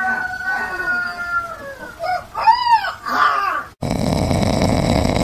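Young puppy howling: one long, slowly falling howl, then a couple of shorter rising-and-falling yowls. About four seconds in this gives way abruptly to a steady rushing noise.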